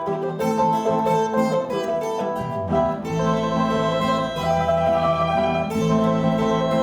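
Plucked string instruments of the guitar family playing a piece together, several notes sounding at once over a low bass line that comes in about three seconds in.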